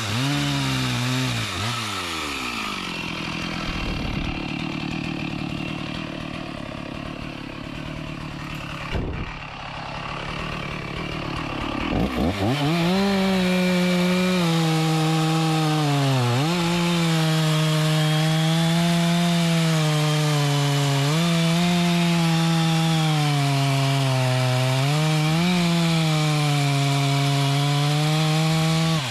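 Chainsaw cutting mahogany wood. It revs up and down, runs quieter for a while, then a little under halfway through opens up to full throttle and stays loud. Its pitch sags and recovers again and again as the chain bites into the wood.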